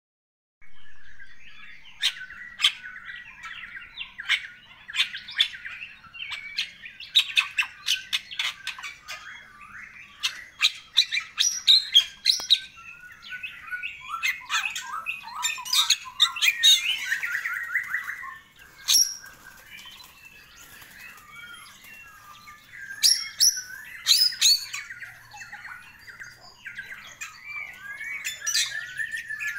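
Bali myna (Bali starling) singing: a rapid, varied run of whistled notes mixed with sharp squawks and clicks, easing into a quieter spell about two thirds of the way through before picking up again.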